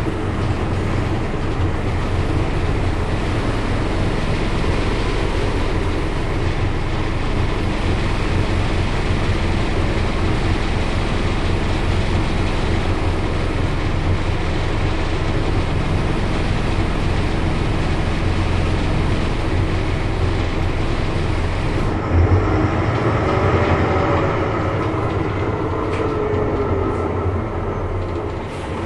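RVI PR 100.2 city bus heard from inside the passenger cabin while driving: a steady low diesel drone with road and body rattle noise. About two-thirds of the way through the low drone drops away with a brief knock, and a falling whine follows for a few seconds.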